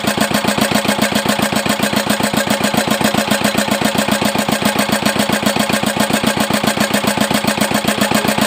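Small single-cylinder air-cooled diesel engine running steadily, its firing pulses coming in an even, rapid rhythm without rising or falling.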